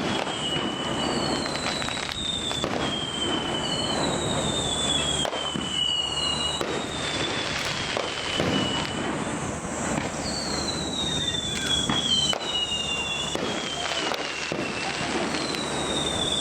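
Fireworks display: scattered bangs and crackling over a steady rumble, with a high whistle sliding down in pitch about every two to three seconds.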